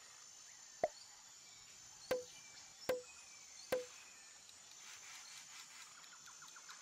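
Four short pop sound effects, each with a brief low ring, the first on its own and the other three about a second apart.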